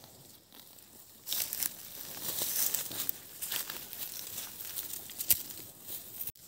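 Dry vegetation rustling and crackling, starting about a second in, with one sharp snap a little before the end.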